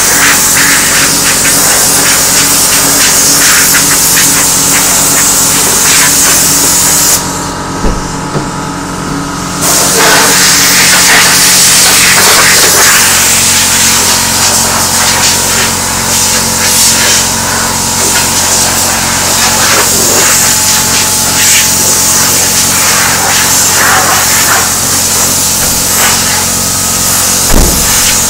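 Compressed air hissing loudly from a hand-held air blow gun, blowing metal drill filings off a van's sheet-metal rear door. The blast stops for about two seconds around seven seconds in, then starts again, with a steady low hum underneath.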